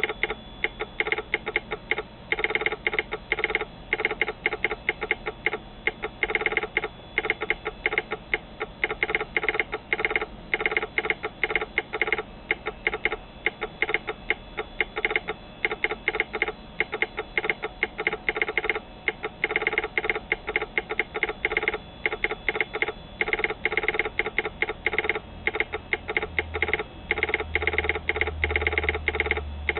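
Telegraph sounder on a KOB (key on board) clacking out railroad American Morse code at about 24 words per minute, in quick runs of clicks with short gaps between characters and words. A low hum comes in near the end.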